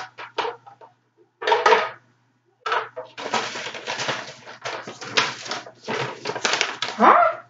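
Clear plastic packaging bag crinkling and rustling as it is handled, first in short separate bursts, then dense for most of the second half. A short rising sound near the end is the loudest moment.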